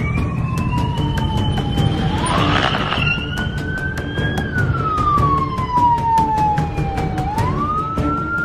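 Emergency vehicle siren wailing, its pitch sliding slowly down and up in long sweeps of a few seconds each, over background music with a steady beat.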